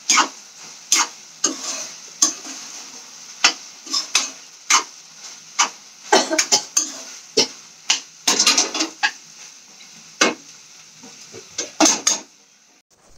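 Metal spoon stirring a kadhai on the stove, scraping and clinking against the pan in irregular strokes that come faster about six to nine seconds in, with a faint sizzle underneath.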